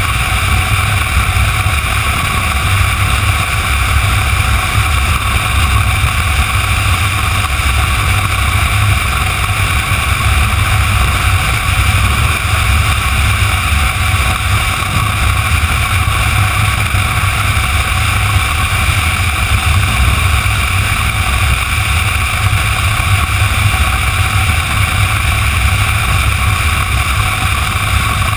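Motorcycle engine running steadily while cruising along a highway, heard from the bike with steady wind noise over the microphone.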